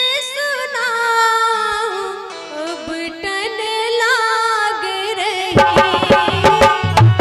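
A woman singing an Indian wedding song (vivah geet) into a microphone, drawing out long ornamented notes with a wavering vibrato. About five and a half seconds in, drums come in with a steady beat and deep bass thumps under the voice.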